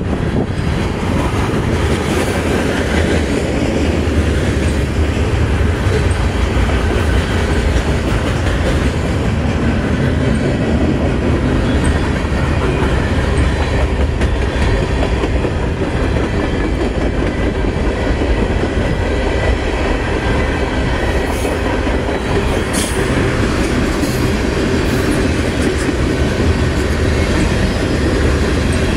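A long freight train of covered hoppers, tank cars and open hoppers rolling past close by, its steel wheels making a steady, loud rumble on the rails.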